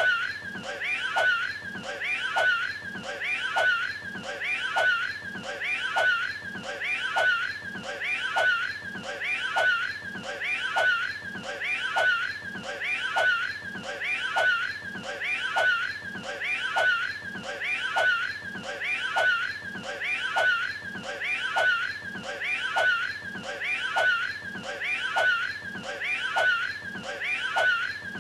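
A cartoon cat character's voice retching and hacking as if throwing up a hairball. One short clip is looped back to back, repeating evenly about once every 1.2 seconds.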